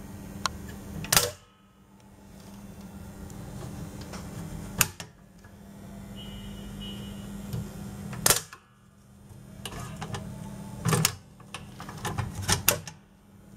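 Handling noise from an antique sheet-metal lantern being turned over by hand: a few sharp clicks and knocks several seconds apart, with a quick run of them near the end, over a steady low hum.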